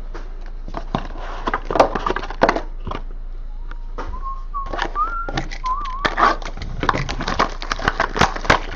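Cardboard trading-card box and wrapper being handled and opened: a run of crackles and clicks, with a person whistling a short wavering tune in the middle for about three seconds.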